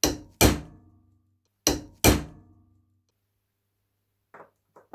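Hammer blows on a steel adjustable wrench: four sharp strikes in two quick pairs about a second and a half apart, each with a brief metallic ring. A few faint light knocks come near the end.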